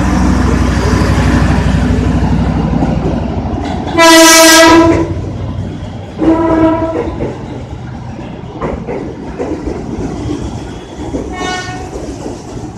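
A train running with a steady low rumble, then its horn sounding one long loud blast about four seconds in, a shorter blast soon after, and a fainter blast near the end.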